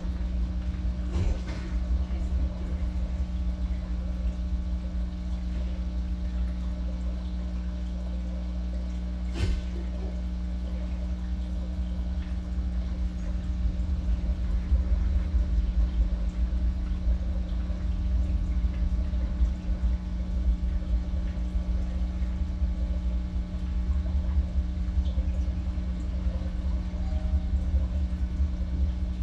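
Aquarium aeration and filter running: a steady low hum and rumble with the water bubbling, and a couple of faint clicks.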